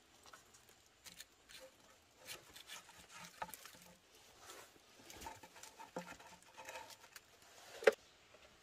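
Small wood fire being tended: irregular light clicks and knocks as burning sticks are shifted and pushed into the fire, with one sharper knock near the end.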